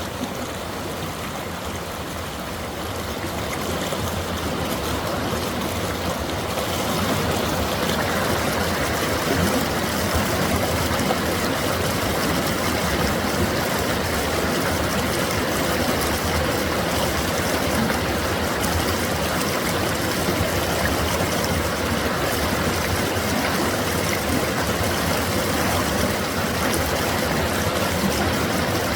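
Mountain valley stream running, a steady rushing and trickling of water that grows a little louder over the first several seconds and then holds even.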